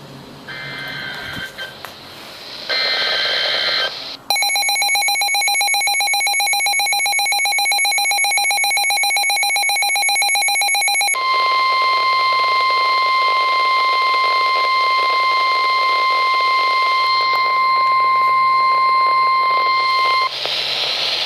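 Emergency Alert System alert tones. It opens with two short bursts of electronic data tones, then about seven seconds of a rapidly pulsing buzzy alert tone. A steady, piercing weather-radio warning tone near 1 kHz follows and cuts off near the end.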